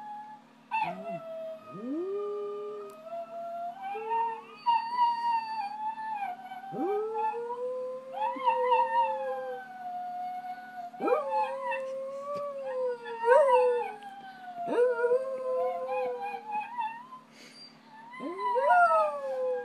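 Jack Russell terrier howling, a series of about six long howls. Each swoops up sharply, is held, then slowly falls in pitch.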